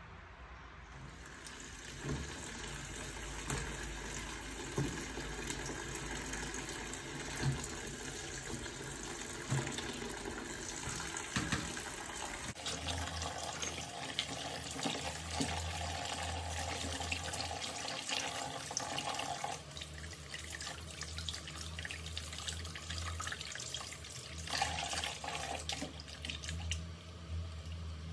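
Tap water running into a plastic basin of vegetables while hands swish and rub them in the water, with small splashes and knocks. The sound changes abruptly about halfway through.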